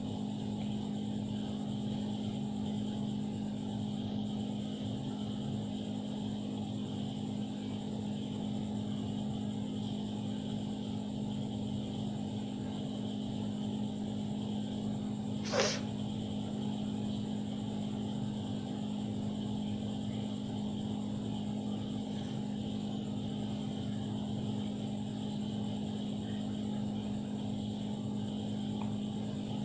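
A steady mechanical hum, with one brief sharp sound about halfway through.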